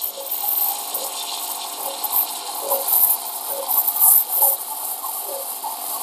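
Single-hole steam wand of a Barsetto BAE02 espresso machine hissing steadily into a pitcher of milk as the milk is textured, with several short, louder high hisses scattered through.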